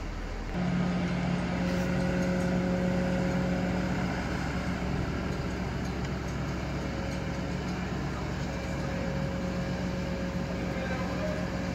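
Fire brigade turntable ladder truck running its engine and ladder hydraulics as the ladder raises and extends: a steady hum that steps up in level about half a second in and holds.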